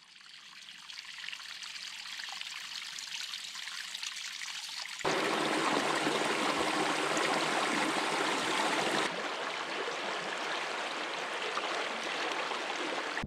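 Running water, like a stream, fading in at the start and getting suddenly louder about five seconds in, then a little quieter about nine seconds in.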